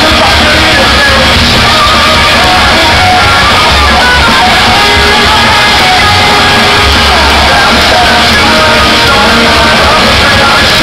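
Punk rock band playing live, steady and very loud: electric guitars, bass and drums with shouted singing, heard from among the audience in a large hall.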